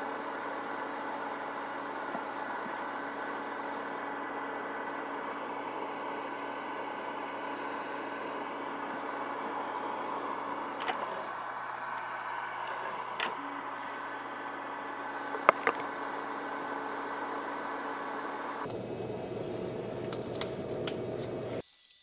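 Cuisinart air fryer toaster oven running while baking, its fan giving a steady whirring hum. A few small clicks come midway, and the hum changes a few seconds before the end.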